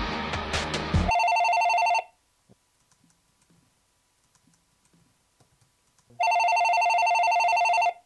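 Cordless phone handset ringing twice with an electronic warbling ring, the first ring just under a second long and the second nearly two seconds, about four seconds apart.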